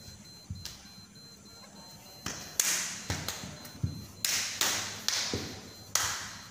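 Silat practice: bare feet thudding and stamping on a tiled floor, with a run of about six sharp slaps from hands striking body and clothing as the moves land in the second half.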